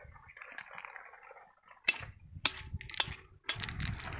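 A few sharp knocks on a steel bowl, each with a brief metallic ring, about half a second apart, starting about halfway through.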